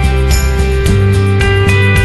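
Background music with a steady beat, bass line and sustained melodic notes.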